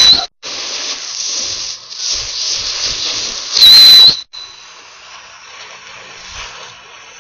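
Whistling ground-spinner fireworks hissing as they throw sparks, with a loud shrill whistle that cuts off a quarter second in and another about three and a half seconds in lasting half a second; after that the hiss drops to a faint sputter.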